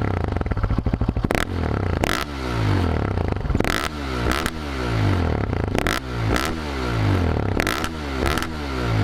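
2010 Polaris Outlaw 450 S quad's single-cylinder four-stroke engine, breathing through a de-baffled CRD aftermarket exhaust with a Powerbomb header, idling and then blipped five times, each rev rising and dropping back. This is the full loud exhaust note.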